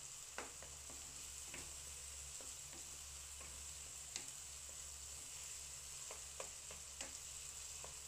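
Chopped onion and tomato sizzling gently in oil in a nonstick frying pan. A wooden spatula stirs them, giving scattered short taps and scrapes against the pan.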